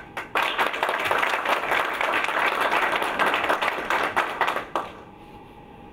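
An audience applauding, a dense patter of many hands clapping for about four seconds before dying away.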